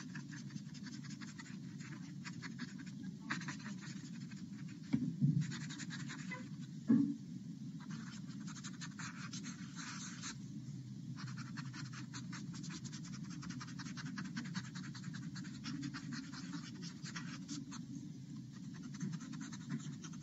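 Paper blending stump rubbing graphite shading into drawing paper: a dry scratchy rasping in runs of quick short strokes with brief pauses between them. Two soft thumps come about five and seven seconds in.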